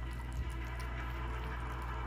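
Kitten lapping and chewing soft weaning food: scattered small wet smacking clicks over a steady low hum.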